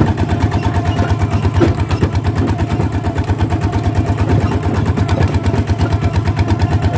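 Single-cylinder diesel engine of a two-wheel walking tractor running steadily as the tractor drives along, a fast, even chugging beat.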